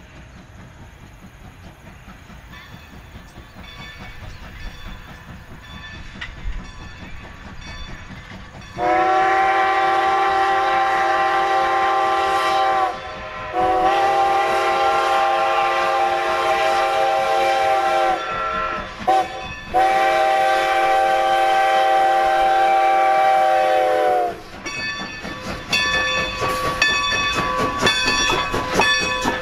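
Strasburg Railroad #90, a Baldwin 2-10-0 steam locomotive, blows its steam whistle for a grade crossing: two long blasts, a short one, then a final long one. Before the whistle, the approaching train's sound slowly grows louder. Near the end the locomotive passes close with a rapid rhythmic clatter.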